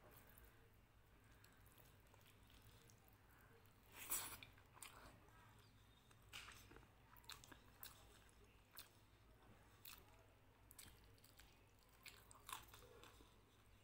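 Faint close-up eating sounds from a rice meal eaten by hand: fingers squishing and mixing rice with dal, and mouth chewing with small crunches and wet clicks. A single louder crunchy click comes about four seconds in.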